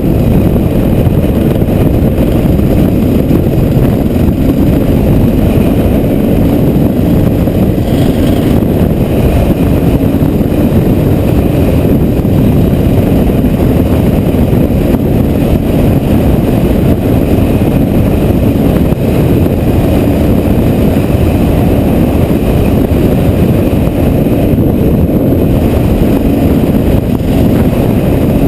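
Strong wind of a dust storm buffeting the microphone: a loud, steady, low rumble.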